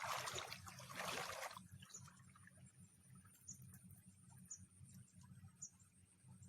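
Low, steady rush of a fast-flowing river. Two short scuffling noises come in the first second and a half, then faint high chirps about once a second.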